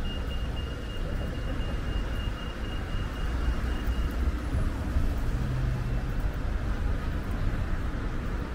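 Steady city road-traffic rumble from passing cars and buses on wet streets. A high electronic beeping, about four beeps a second, fades out about four seconds in.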